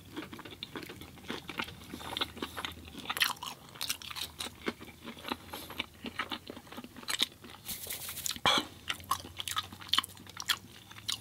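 Close-miked eating sounds: a person biting and chewing food, with many small, irregular clicks from the mouth and a somewhat stronger bite about eight and a half seconds in.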